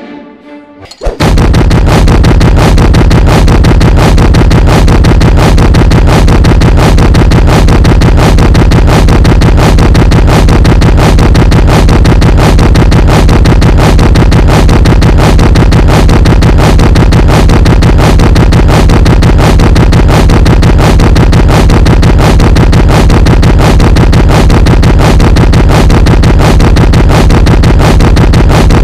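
Orchestral music, then about a second in a sudden, extremely loud, heavily distorted and clipped blast of music with strong bass and a fast, even pulse, held unchanged.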